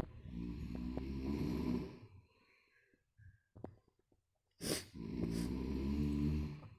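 Heavy snoring: two long snores of about two seconds each, the second starting about four and a half seconds after the first.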